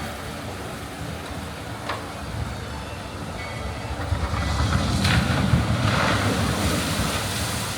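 Steam-train passenger car rolling along the track with a steady low rumble, swelling louder with a rushing hiss in the second half, and a couple of short sharp clicks.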